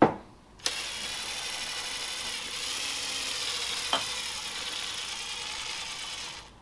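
Cordless drill running steadily at speed for about five and a half seconds, driving a screw-type piston pin press on an aircraft engine's piston. A sharp knock comes just before it starts, and a click about four seconds in.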